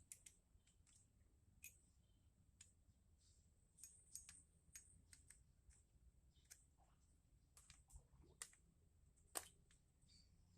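Faint, irregular light clicks and ticks, with the sharpest click near the end, typical of small carburettor parts being handled and fitted.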